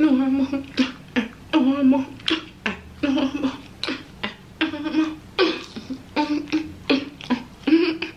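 A woman's voice vocalising without clear words in short, rhythmic phrases.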